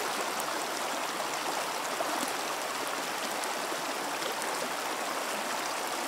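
Shallow mountain stream rushing and babbling over rocks, a steady, even rush of water.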